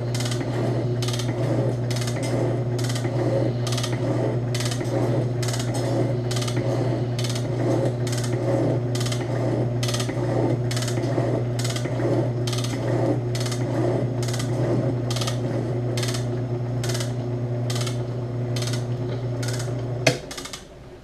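Ammco 7-inch metal shaper running under power, taking a cut with a carbide tool: a steady motor hum with a sharp clack on every stroke of the ram, about three every two seconds. About a second before the end the motor is switched off with a click, and the hum and clacking stop at once.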